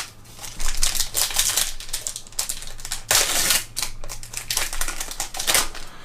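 Plastic trading-card pack being torn open and handled: dense, irregular crinkling and crackling of the wrapper with cards rustling.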